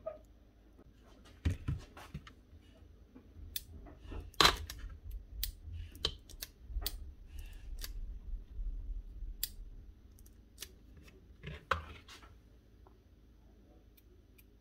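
Scattered sharp clicks and light knocks of hand handling at a workbench, with a low rumble for a few seconds in the middle.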